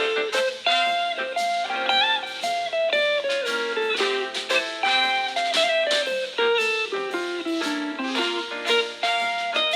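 Xiaomi POCO F2 Pro guitar ringtone playing: a bluesy melody of plucked notes with bends and slides, with no deep bass.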